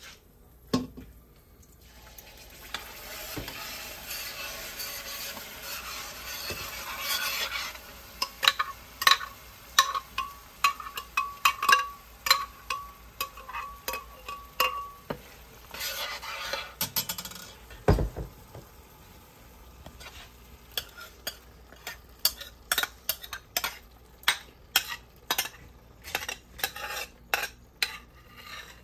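Chiles frying in hot oil in a pot: a sizzle that swells over the first few seconds, then a utensil stirring and clinking against the pot over and over. One dull heavy thump comes about two-thirds of the way through.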